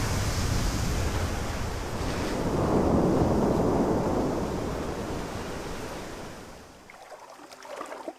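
Sea waves surging over rocks, the rush swelling to a peak about three seconds in and then dying away.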